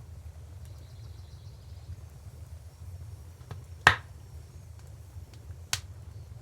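Wood fire crackling: a loud, sharp pop about four seconds in and a second pop about two seconds later, with a few faint snaps, over a steady low rumble.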